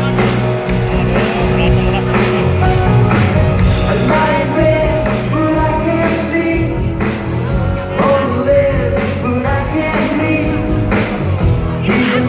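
A live pop-rock band playing a song, with a lead voice singing over it.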